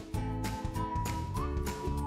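Upbeat background music with a steady beat and a single high melody line.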